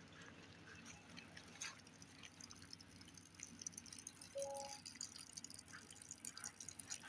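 Faint, irregular dripping and trickling of water leaking from bullet-holed plastic water jugs, with a brief faint two-note tone about four and a half seconds in.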